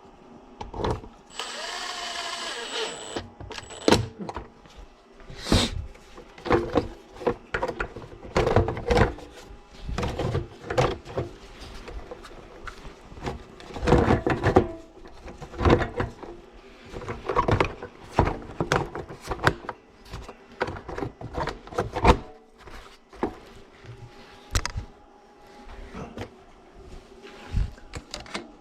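Hand tools and small metal parts knocking and clinking on a workbench, one sharp knock after another, with a brief whir of a small power tool about a second in.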